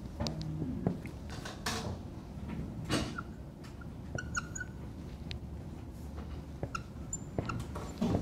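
Scattered light taps and short squeaks of a pen writing on an interactive whiteboard, over a steady low room hum.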